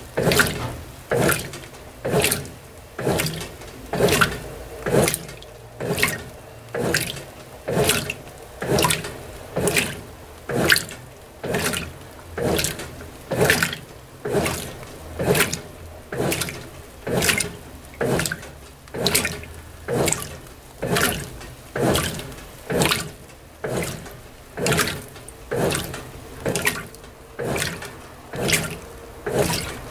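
Brastemp BWT12 top-loading washing machine agitating a delicate load in a low water level: a regular swish-and-slosh of water and clothes about once a second as the washer drives the load back and forth.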